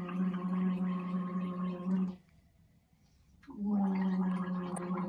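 A woman gargling furacilin solution, her voice held on one steady tone through the bubbling liquid. She stops for about a second and a half about two seconds in, then gargles again.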